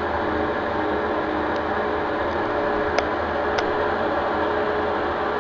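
Brastemp Super Capacidade 7 kg top-loading washing machine running with a steady, loud drone and hiss, with a couple of faint ticks about three seconds in. Its bearings are blown, and the noise is irritating. It is heard from the neighbouring house.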